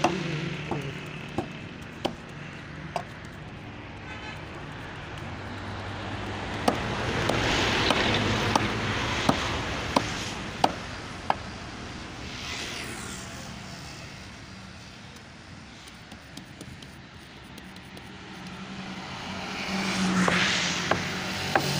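Repeated sharp chops of a large blade cutting through dry straw against a block, roughly one every two-thirds of a second and clearest in the middle stretch, over a background hiss that swells and fades a few times.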